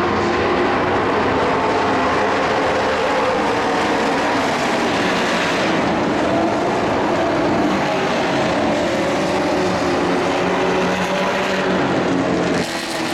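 Several dirt-track race trucks' engines running hard together in a pack at speed, a loud, steady blend of overlapping engine notes that rise and fall as the trucks pass. The sound dips briefly near the end.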